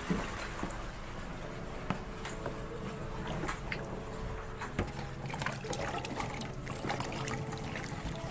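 Water splashing and trickling as peeled cassava pieces are washed by hand in a basin, with scattered small knocks of pieces against the basin.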